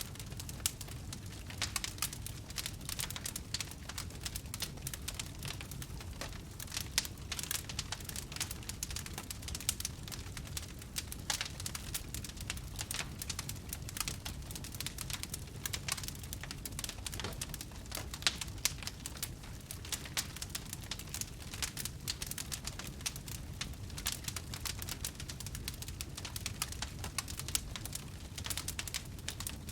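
Fire burning with a steady low rumble and constant irregular crackles and pops.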